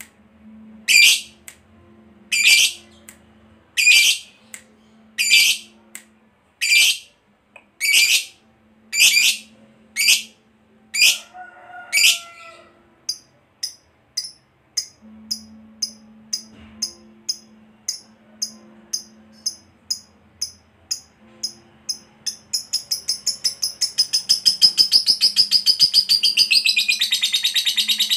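Masked lovebird calling: loud, sharp, high-pitched calls about every second and a half, then quicker, softer chirps about twice a second. About three-quarters of the way through these speed up into a long, fast chattering trill, the loudest part, the long 'ngekek' that lovebird keepers prize.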